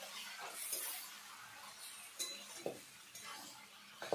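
Metal spatula stirring marinated chicken in a metal kadai, clinking and scraping against the pan with a few sharp clinks spread through.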